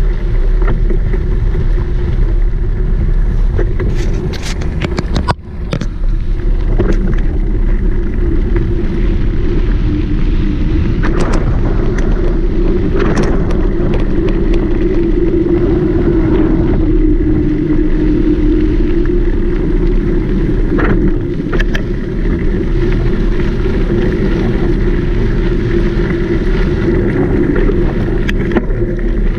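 Steady rush of wind and rolling tyre noise while a mountain bike is ridden at speed, with a few sharp clicks and knocks from the bike over bumps.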